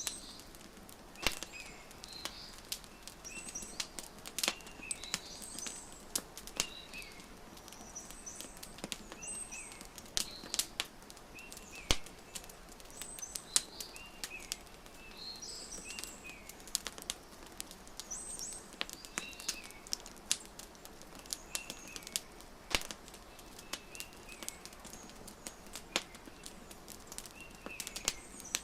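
A fireplace fire crackling, with sharp irregular pops and snaps over a steady soft hiss. Small birds chirp in short repeated phrases throughout.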